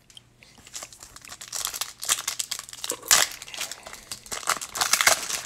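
Foil wrapper of a Donruss Optic baseball card pack being torn open and crinkled by hand: a run of crackling crinkles that starts about a second and a half in and is loudest around the middle and near the end.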